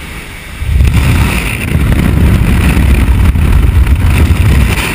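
Loud wind buffeting a camera's microphone in the slipstream of a skydiving jump plane, rising suddenly about half a second in as the camera flyer leaves the aircraft door and then holding steady.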